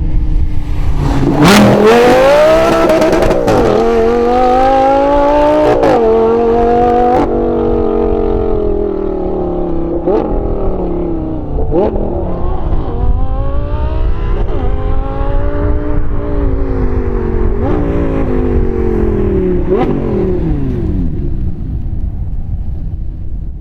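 Lamborghini Gallardo LP570-4 Super Trofeo Stradale's V10 engine through a valveless straight-piped Kreissieg exhaust, loud and accelerating hard again and again, its pitch climbing and dropping with sharp cracks at the changes.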